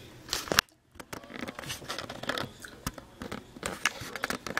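Handheld camera being moved and handled close against clothing: a run of irregular rustles and scratches from fabric and fingers on the microphone, with a brief drop to near silence about half a second in.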